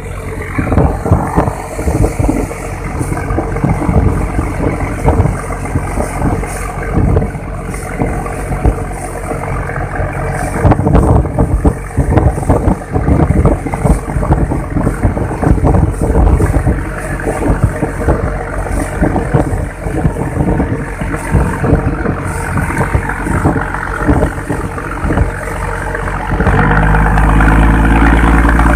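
A fishing boat's engine running under way, with rough, gusting noise of wind buffeting the microphone and water rushing past the hull. About 26 seconds in, the engine note becomes steadier and louder.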